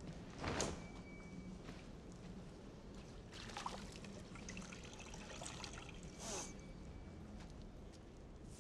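Faint water trickling and dripping from a wet cloth into a pot, with a few short splashes.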